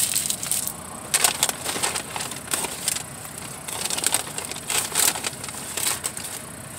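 Close-up eating a burrito: chewing and handling its paper wrapper, with irregular crackly rustles.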